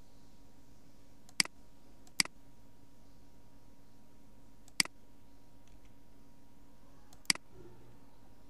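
Computer mouse clicking four times, single sharp clicks spaced a second or more apart, over a faint steady hum.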